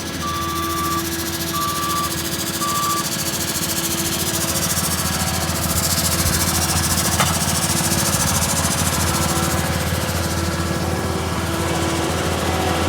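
Engine of the machine driving a rock-coring auger bit running steadily under load, with three short beeps in the first three seconds and a single sharp click about seven seconds in.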